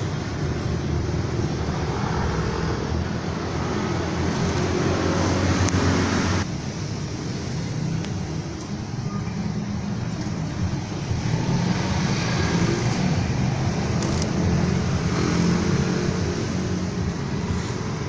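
Steady rumble of road traffic and vehicle engines. It drops off abruptly about six seconds in and swells again later.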